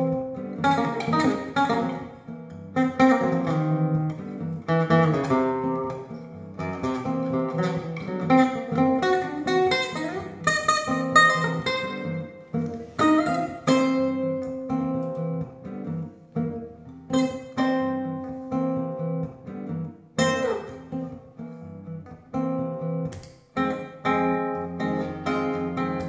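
Classical guitar playing solo, picking a melody over strummed chords.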